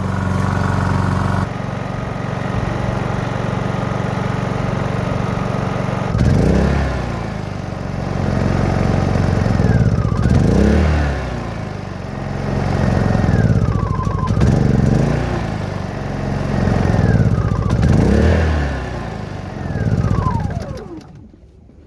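Honda EU2200i inverter generator's single-cylinder engine running under the load of a refrigerator and a window air conditioner. It runs steadily at first, then its speed rises and falls again and again, about every two seconds. The sound drops away sharply near the end.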